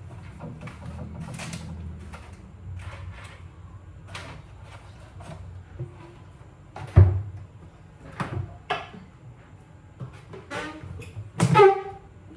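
Kitchen cupboards and their contents being opened, shut and rummaged through: a run of irregular knocks and clatters, the loudest about seven seconds in, with a short pitched sound near the end.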